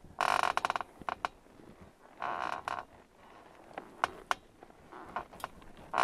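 Metal bed squeaking in irregular, pitched squeaks: two longer squeaks, near the start and about two seconds in, then shorter single creaks scattered through the rest.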